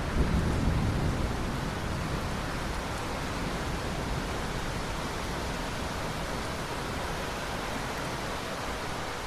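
Steady rain hiss, with a low thunder rumble fading out over the first second or two.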